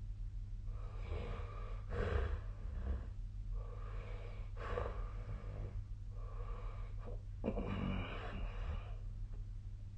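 A sleeping person's heavy, rough breathing: a run of noisy breaths, each inhale and exhale heard separately, with one longer breath about three-quarters of the way through. A steady low hum runs underneath.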